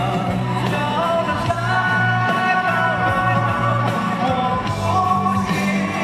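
A male singer singing live into a handheld microphone over loud backing music with a heavy bass, holding long notes in the middle of the phrase.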